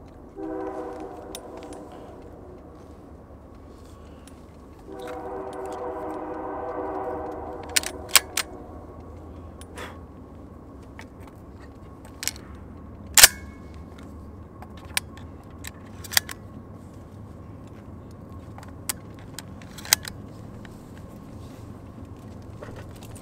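A train horn blows twice, a short blast then a longer one a few seconds later, over a steady low rumble. From about eight seconds in come scattered sharp metallic clicks of shotgun shells being loaded and the action handled, the loudest a little past the middle.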